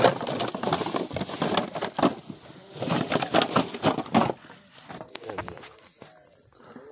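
Close, loud rustling and crackling of a cloth sack being handled, in uneven bursts that die away about five seconds in.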